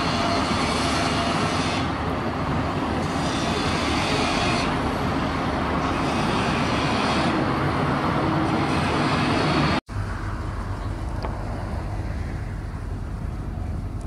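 Steady road traffic noise that grows brighter twice as vehicles pass. An abrupt cut about ten seconds in leaves quieter street ambience with a low rumble.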